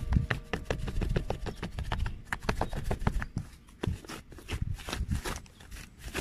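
Fluffy, foamy pink slime being squeezed and kneaded by hand, giving a dense run of small crackling pops as the air bubbles in it burst. The pops thin out and get quieter about halfway through.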